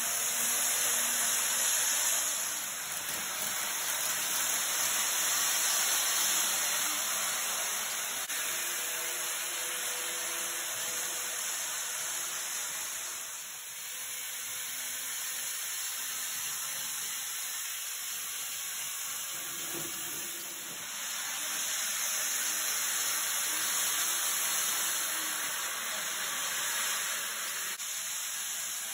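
N gauge model trains running on several tracks at once: a steady whirring hiss of small motors and wheels on rail, swelling and fading as trains pass close by, with a faint motor whine underneath.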